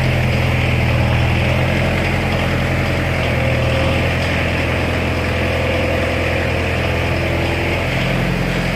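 Spra-Coupe self-propelled sprayer's engine running steadily as the sprayer creeps forward, a low, even engine note.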